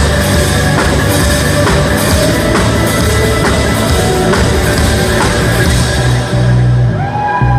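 Live rock band playing loud: electric guitar, bass guitar and drum kit, with a steady drum beat and heavy bass. The playing breaks briefly near the end, with held, bending guitar notes.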